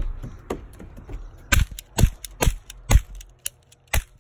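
Toy cap gun firing a rapid string of sharp cracks, four about half a second apart and one more near the end.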